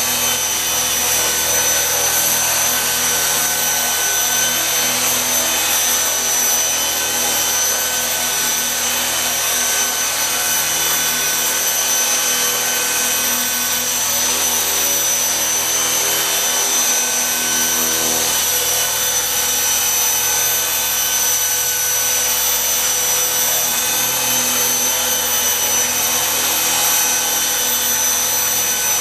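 Small electric RC helicopter in flight, its motor and rotor giving a steady high-pitched whine that holds a near-constant pitch.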